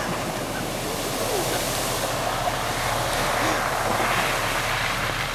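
Hummer H2 driving fast through a deep muddy puddle: a loud, continuous rush of mud and water spraying and splashing, over the steady drone of the engine.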